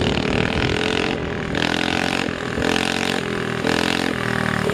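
Coleman CT100U mini bike's small single-cylinder engine running under a rider, its pitch rising and falling several times as the throttle is worked.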